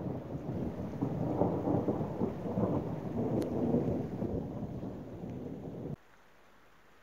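Thunder rolling in a low, uneven rumble that slowly fades, then cuts off abruptly about six seconds in, leaving near silence.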